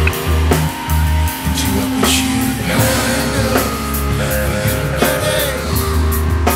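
Instrumental passage of a lo-fi indie rock song: guitar over deep bass notes, with a drum kit keeping a steady beat.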